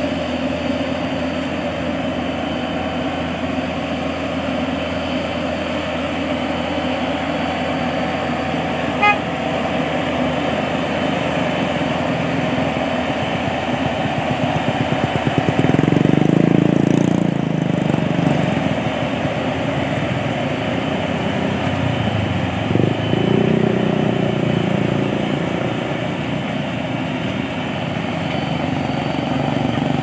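Yanmar YH850 combine harvester's diesel engine running steadily as the machine drives, growing louder for a few seconds around the middle. A short high beep sounds about nine seconds in.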